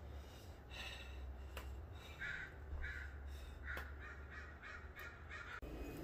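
A crow cawing, a few scattered caws and then a quick run of five or so that cuts off suddenly near the end.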